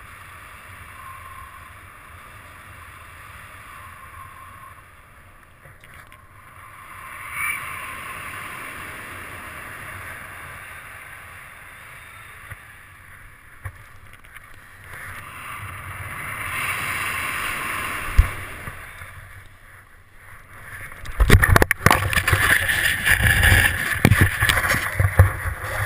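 Wind rushing past the helmet-mounted camera during a low paraglider flight, swelling and fading. About 21 seconds in it gives way to loud scraping, knocking and hissing as the pilot touches down and skids through the snow, throwing up spray.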